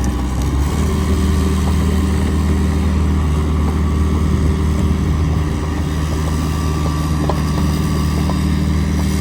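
Bobcat 331 mini excavator's diesel engine running steadily, its note shifting slightly under a second in, with a few faint clicks later on.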